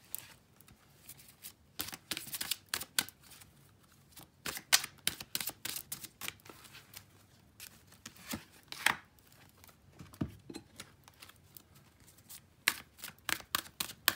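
Deck of oracle cards being shuffled and handled: irregular quick papery flicks and taps, coming in short clusters.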